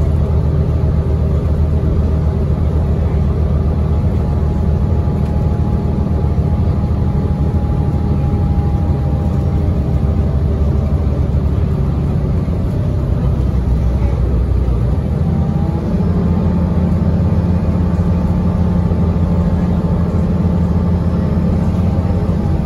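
Inside the cabin of a 2017 Gillig BRT transit bus under way: the engine and drivetrain run steadily over road noise, with a faint whine above them. About two-thirds of the way through, the engine note shifts higher.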